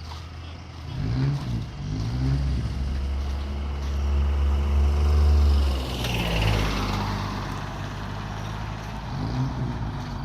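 Restored classic truck's engine pulling under load on a road test, its pitch rising and dropping back with gear changes, then running steadily. A burst of hiss comes about six seconds in and fades away.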